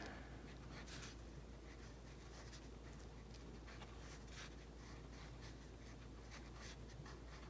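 Dark green wax crayon scratching faintly on paper in short, irregular strokes while tracing around small circles.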